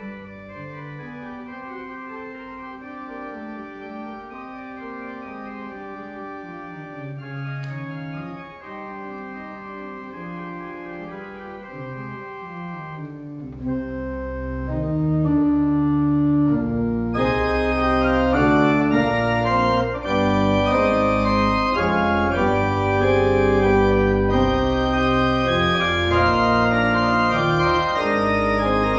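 Restored church pipe organ playing sustained chords, softly at first. About halfway through, deep pedal bass notes come in, and a few seconds later the organ swells louder and brighter.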